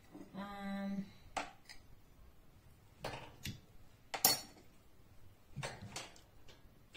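A spatula knocking and scraping in a frying pan of chicken and vegetables as it is stirred: a handful of separate clacks, the loudest about four seconds in. A brief held vocal hum comes in the first second.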